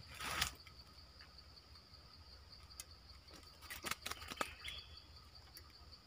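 A steady high-pitched insect drone, with a rustle at the very start and a few light clicks and knocks about three to four and a half seconds in as a wooden pole carrying a birdcage is handled.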